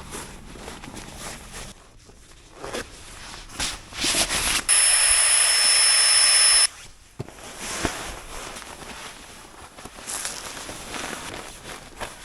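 A loud, steady hiss with a high whistle in it, lasting about two seconds from just under five seconds in and cutting on and off abruptly, amid rustling and handling of camping gear.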